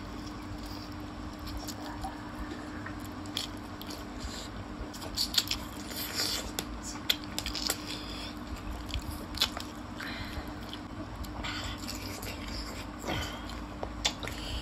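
Close-miked mukbang eating sounds: two people chewing and biting into chicken feet and noodles, with many scattered short, sharp mouth smacks and clicks.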